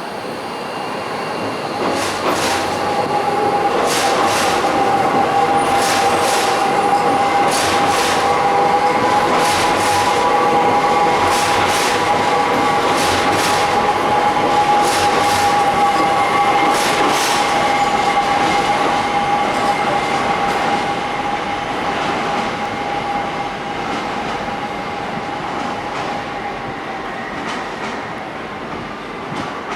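Docklands Light Railway trains departing: a steady electric whine from the traction gear with irregular clicks of the wheels over rail joints and points. It grows louder from about a second in, holds, then fades toward the end as the trains draw away.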